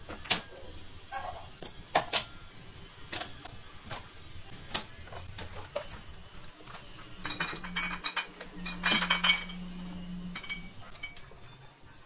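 Scattered clinks and knocks of dishes and utensils being handled, busiest a little past the middle, with a steady low hum for about three seconds during that stretch.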